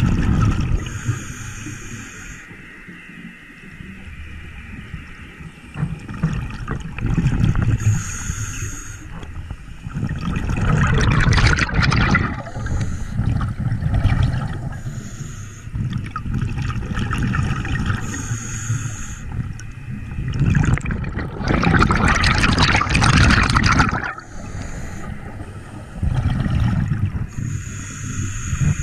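A scuba diver breathing through a regulator, heard underwater: short hisses of inhaling every several seconds, and twice a long gurgling rush of exhaled bubbles about ten seconds apart, over a low rumble of moving water.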